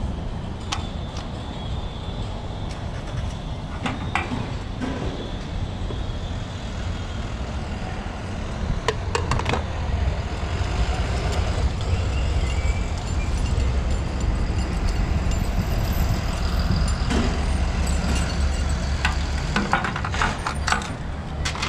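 A low, steady vehicle rumble, louder from about halfway through, with scattered clicks and knocks from handling the fuel pump nozzle and the motorcycle's fuel cap, several of them near the end.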